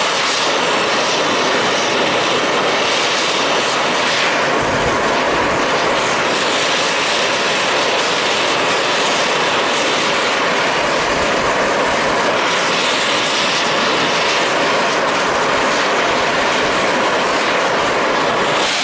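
Oxy-fuel cutting torch burning with a neutral flame, a steady loud hiss, as it heats aluminum for welding.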